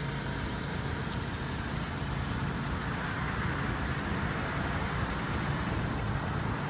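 Steady low engine hum mixed with road traffic noise, unchanging throughout.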